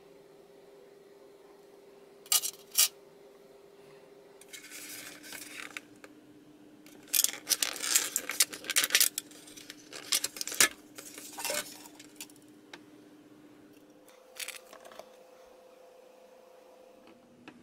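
Thin moulded plastic candy-kit tray being handled and flexed, giving sharp clicks and crackles. There are two clicks early, a short rustle, then a dense run of crackling and snapping as the plastic is bent and pulled apart, and a few light clicks near the end.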